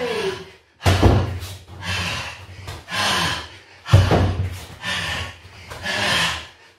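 Two heavy thuds about three seconds apart, from a man jumping onto foam floor mats and kicking a free-standing punch bag in a push-up, jump-forward, kick, jump-back drill. Hard, voiced breaths come between the thuds.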